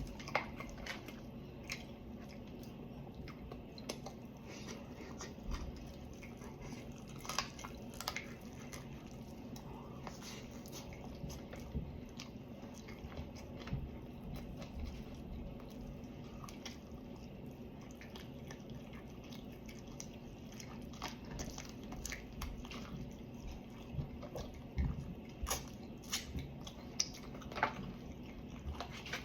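A person eating fried chicken close to the microphone: irregular chewing and biting, with scattered sharp crunches of the fried coating.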